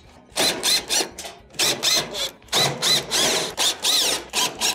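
Cordless drill/driver backing out Phillips screws from a range's sheet-metal back panel in about a dozen short trigger bursts, the motor's whine rising and falling in pitch with each one.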